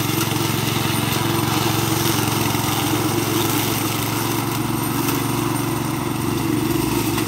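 Walk-behind brush cutter's Chinese-made 7 hp four-stroke Asahi petrol engine running steadily at working speed, driving its belt-driven cutting blade.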